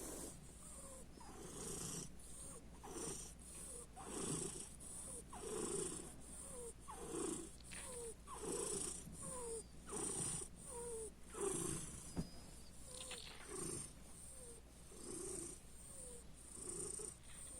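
A cat's snore-like purring: a rasping breath about every second and a half, each carrying a short squeak that falls in pitch.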